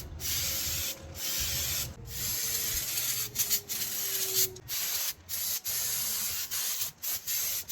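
Aerosol brake cleaner hissing in a series of bursts about a second long, with short breaks between them, as it is sprayed on a brake drum and new brake shoes to wash off oil and contaminants.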